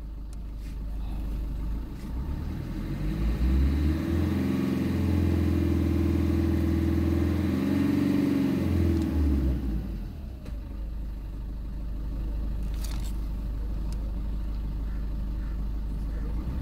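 Diesel vehicle engine revved from idle for a free-acceleration smoke-opacity test. It climbs a few seconds in, holds at high revs for about five seconds, then drops back to a steady idle near the end.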